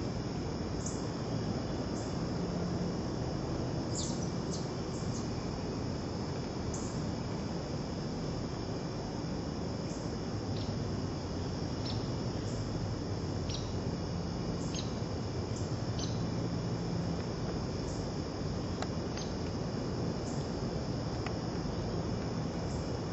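Crickets calling in a steady high-pitched chorus, with short higher chirps now and then, over a low background hiss.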